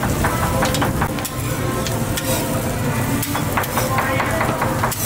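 Shrimp and bread toast frying on a flat-top griddle with a steady sizzle, broken by frequent short clicks and scrapes of metal utensils against the griddle as the toast is handled.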